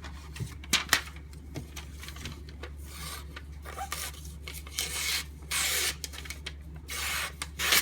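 Knife edge drawn through a material in several separate slicing strokes, each a short rasping rub, as the edge of an Al Mar S.E.R.T. knife is tested for sharpness. The edge could use some work.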